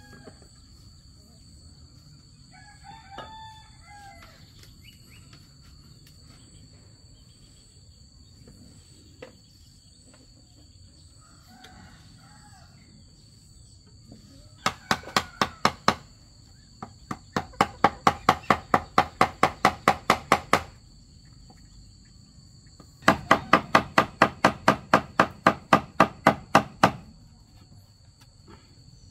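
A rooster crows once about three seconds in. Later come three bursts of rapid sharp taps, about seven a second, from a hammer driving a chisel into a green bamboo pole.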